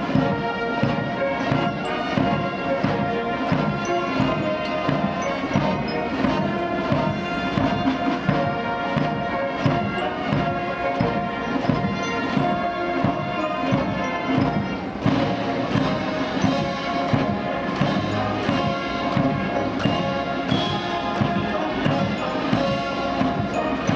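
Military brass band playing a march: brass instruments over a steady bass-drum beat.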